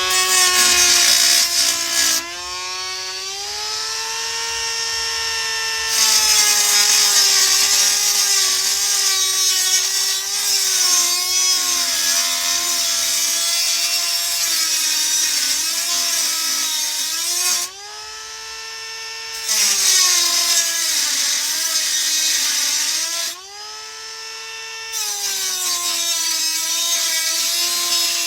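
Electric drill driving a 1-1/2 inch hole saw into a panel. The motor's whine sags and wavers under a steady grinding cutting noise. Three times it briefly spins free at a higher pitch without the cutting noise: about two seconds in, past the middle, and near the end.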